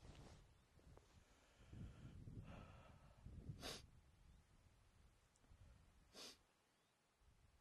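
Near silence broken by two short, breathy puffs, the first about three and a half seconds in and the second about two and a half seconds later.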